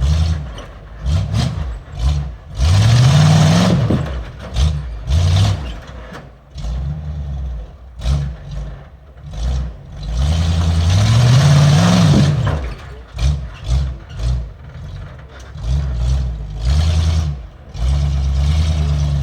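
Off-road vehicle engine revving in repeated throttle bursts, its pitch climbing and falling back, with two longer rising revs, one about three seconds in and one past the middle, among many short blips.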